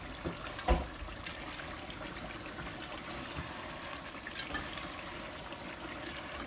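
Meat curry bubbling at a simmer in an enamel pot while a wooden spoon stirs it. There is a sharp knock a little under a second in.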